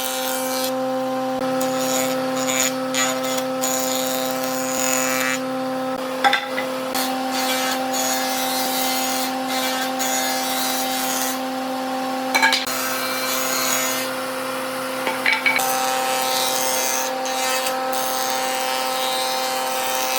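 Power tool running steadily against wood, its motor hum unchanging while a rough abrasive scraping cuts out and resumes several times as the tool is lifted from and pressed back onto the wood, with a few short knocks.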